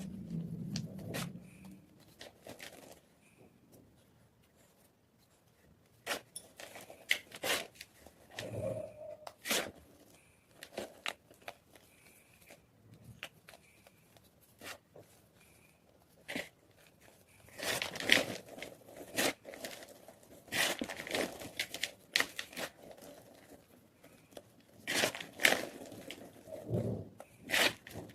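Block of white gym chalk crunching and crumbling, with irregular clusters of sharp, crisp crunches close to the microphone and a quieter lull a few seconds in.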